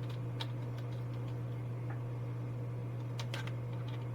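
A steady low hum with a few light clicks: one about half a second in and two close together near the end, from small parts being handled on the build.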